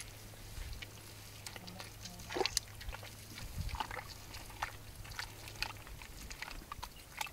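Hands crumbling wet cow dung into a plastic drum of water, giving soft, irregular splashes and drips, with a slightly louder splash about two seconds in.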